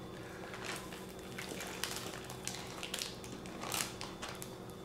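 Miso marinade being poured into a plastic zip-top bag: faint, scattered clicks, clinks and plastic rustles, with a steady low hum behind.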